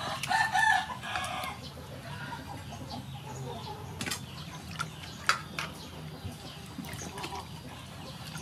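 A chicken clucking loudly during the first second or so, then water sloshing and splashing with a few sharp clicks as raw chicken drumsticks are rubbed and washed by hand in a metal bowl.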